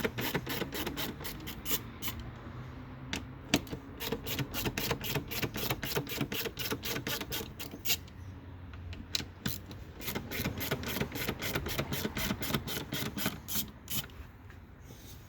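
Ratcheting T25 Torx driver clicking as it backs out the airbox lid screws, a quick run of clicks about five a second, pausing briefly between screws.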